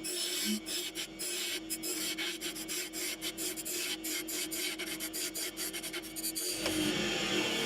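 Wood lathe running with a steady motor hum while a turning tool scrapes and cuts the spinning wooden lid, giving an irregular rasping. The cutting gets denser and hissier near the end.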